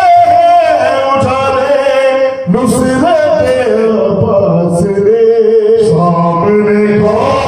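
Men singing a manqabat (devotional praise poem) into handheld microphones, passing the line between two singers, with long held, wavering notes.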